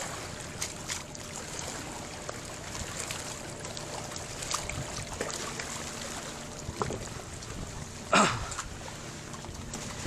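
Seawater washing and trickling, a steady hiss of moving water with scattered small clicks and one brief louder noise about eight seconds in.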